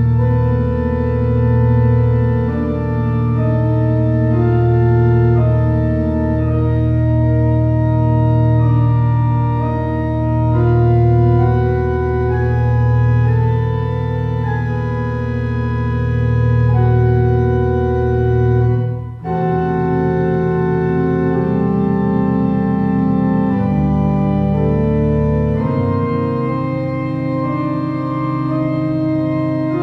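Wicks pipe organ playing a slow piece of held chords over a deep, slowly swelling pedal bass, in a dry room with almost no reverberation. About two-thirds of the way through, the sound breaks off for a moment and a new chord comes in with a different bass line.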